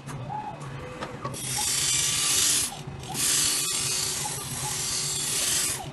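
Phone-screen dry grinding machine running: a steady motor hum under a loud, even hiss as the grinding pad works across the iPhone screen glass. The hiss comes in about a second in, breaks off briefly near the three-second mark, then carries on.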